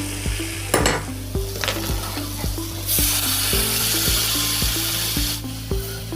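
Potatoes and yardlong beans sizzling in oil and spices in a kadai while a spatula stirs and scrapes them. About three seconds in, a louder hiss bursts up for a couple of seconds as a little water is poured into the hot pan.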